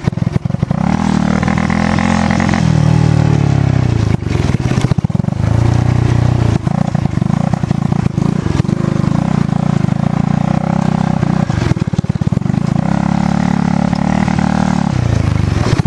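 Dirt bike engine heard from on board, revving up and falling back again and again as it rides the trail. Short knocks and rattles from the bumpy ground come through along the way.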